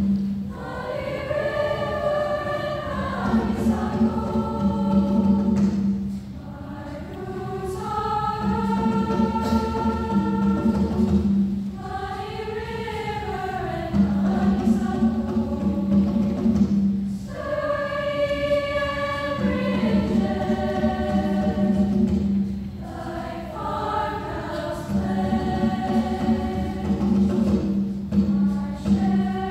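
Women's choir singing in several parts with piano accompaniment, in phrases that rise and fall and pause briefly every few seconds.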